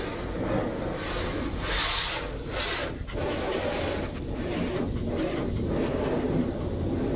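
Automatic car wash working over the car, heard from inside the cabin: a steady low rumble with washes of hissing spray, loudest about two seconds in.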